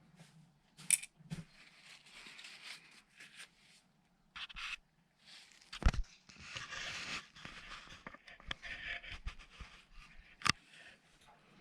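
Hands working with small objects: irregular scraping and rustling, broken by three sharp clicks or knocks, the loudest about halfway through.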